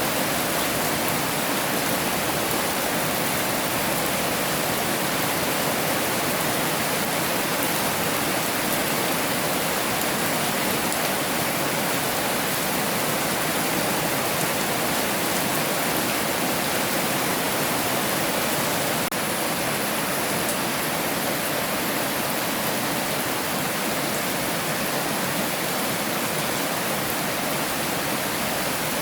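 Heavy rain falling in a steady, even hiss with no let-up.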